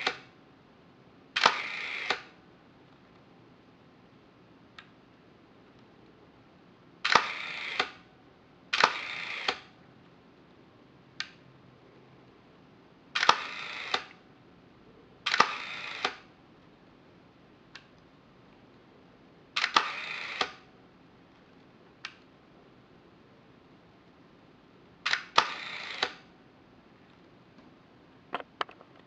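Film camera's shutter mechanism fired and worked again and again at different speed settings. Each cycle is a sharp mechanical click with a short rasping run ending in another click, and fainter single clicks fall between the cycles.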